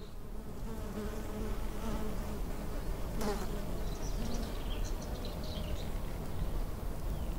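A flying insect buzzing steadily, its pitch wavering a little, with a few faint bird chirps a few seconds in.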